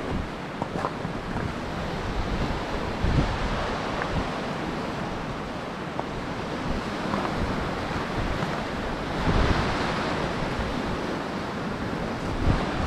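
Wind blowing across the microphone: a steady rushing noise with irregular low rumbling buffets, swelling in a stronger gust about nine seconds in.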